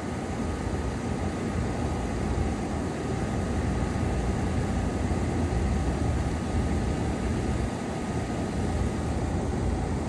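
Packaged heat pump running steadily: the outdoor fan and compressor give an even hum with rushing air.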